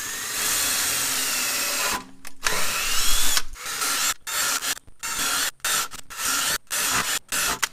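Power drill boring holes through the old rubber of a rear trailing arm bushing, to clear the rubber out of the metal sleeve. It runs steadily for about two seconds, then in a series of short bursts with brief stops, with a rising whine as it spins up about three seconds in.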